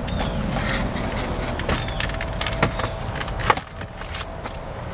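Scattered clicks and knocks of hands handling the cargo-area fittings and the retractable cargo cover of a Jeep Grand Cherokee, with one sharp click about three and a half seconds in, over a steady low rumble.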